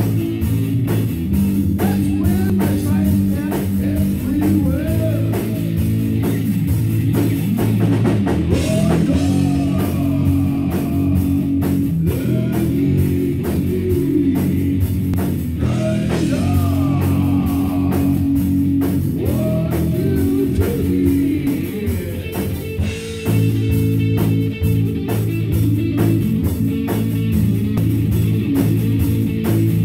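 Rock music: an electric guitar plays sustained, bending notes over a drum kit.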